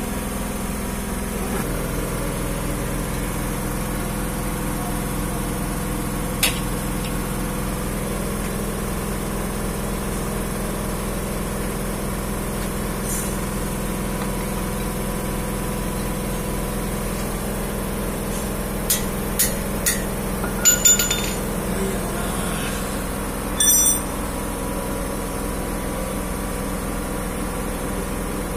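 A steady machine hum, like an engine running, with a few sharp clinks: one single clink, then a quick cluster of them about two thirds of the way in.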